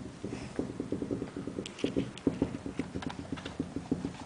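Quick run of soft taps and thumps, about ten a second, with a few sharper clicks partway through: a puppy's paws and claws scrabbling on a tiled floor and rug as it plays.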